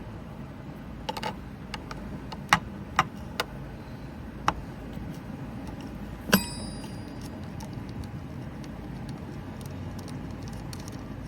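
Small hard parts being handled: a few scattered clicks and taps, then a louder metallic clink about six seconds in that rings briefly, over a steady low hum.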